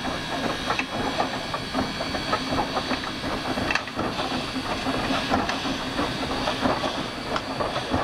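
Heisler geared steam locomotive moving slowly, with a steady hiss of steam and irregular clicks and clanks from its wheels and running gear on the rails.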